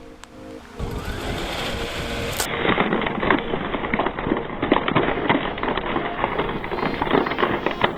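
Car tyres rolling over and crushing crunchy objects: a dense, continuous run of cracks and crunches starting about a second in.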